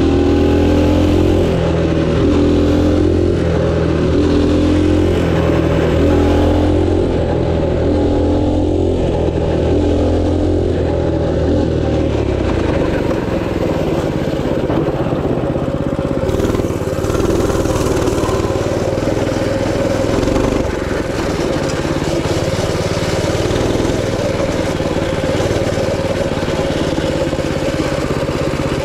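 Minibike's small engine running steadily as the bike rides along, then settling to a lower, rougher note about twelve seconds in.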